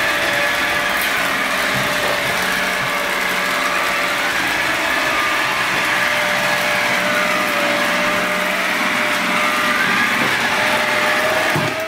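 Evertop Robotic Sweeper B robot vacuum running, somewhat noisy: a steady motor whine with a few tones that waver slightly in pitch. It fades in at the start and fades out at the end.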